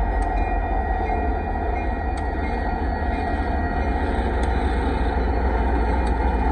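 Kansas City Southern diesel locomotives of a freight train passing close by, a steady heavy rumble of engines and wheels on the rails. Faint sharp clicks come about every two seconds.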